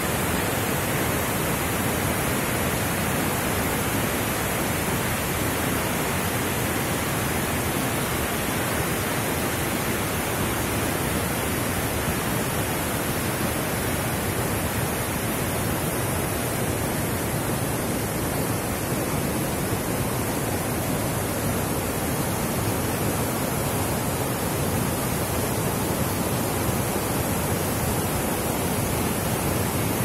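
A fast mountain river rushing through white-water rapids over boulders: a steady, unchanging rush of water.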